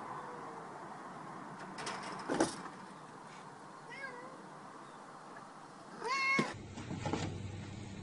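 Domestic cat meowing: a few faint short meows and one loud meow about six seconds in. A couple of sharp knocks come about two and a half seconds in.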